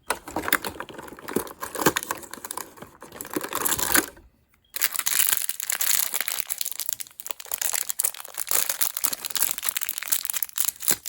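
Packaging wrapper crinkling and tearing as a toy figure is unwrapped by hand, in two stretches with a short pause about four seconds in.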